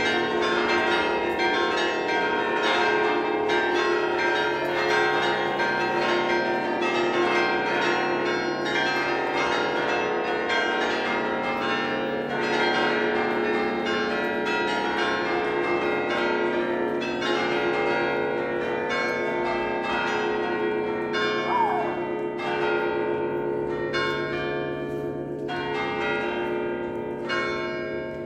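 Festive peal of the Basilica of Saint-Sernin's carillon: many tuned bronze bells struck in quick succession over the steady hum of bells still ringing. The strikes thin out and the level falls near the end.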